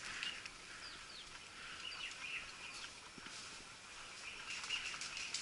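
Small birds chirping faintly: many short calls and quick downward-sliding notes.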